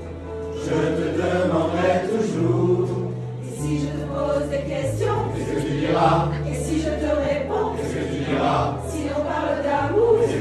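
Mixed community choir of men and women singing together, a low line of long held notes moving in steps beneath the higher voices.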